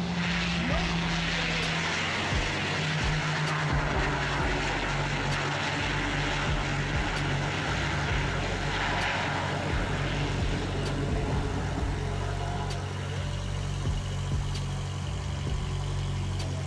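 Piper Cheyenne twin turboprop engines and propellers running at low power as the plane rolls out on the runway after landing: a steady low drone with a hiss over it that swells in the first seconds and again about halfway through.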